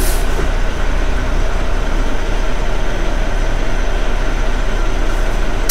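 Semi truck's diesel engine idling steadily, heard from inside the cab while the truck stands still.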